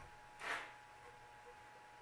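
Near-quiet small-room tone with a faint steady hum, and one brief soft whoosh about half a second in.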